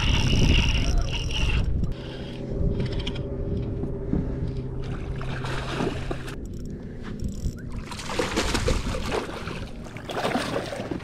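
Spinning reel being cranked fast, its gears whining steadily, while a hooked bass is reeled in; about two seconds in the cranking stops, and later water splashes as the fish reaches the boat.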